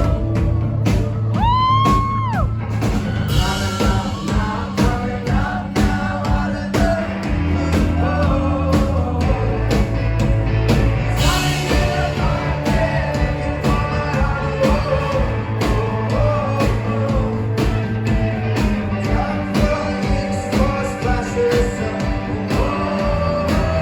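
Live indie rock band playing, with a lead singer's vocal over the band.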